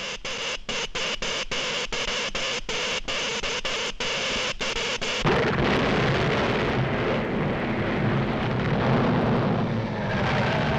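Cartoon sound effects: an electric spark sizzling as it runs along a cable, its hiss broken by many short gaps. About five seconds in, a sudden explosion breaks in and goes on as a long, heavy rumble.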